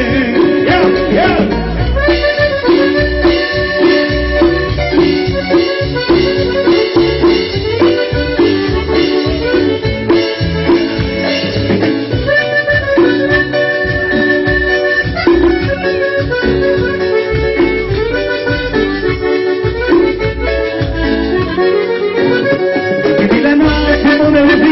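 Instrumental break of a Latin dance song, an accordion playing the melody over a steady beat.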